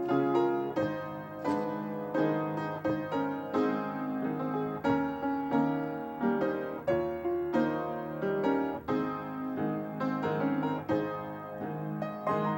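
Piano playing a slow offertory: melody notes and chords struck one after another, each ringing and fading.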